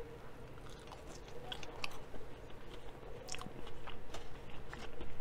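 Quiet chewing of a Popeyes Cajun French fry, with soft irregular crunches and mouth sounds.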